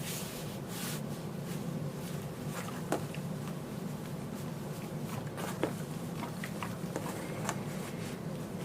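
Steady low room hum with a few faint light clicks and taps, as of fabric and tools being handled.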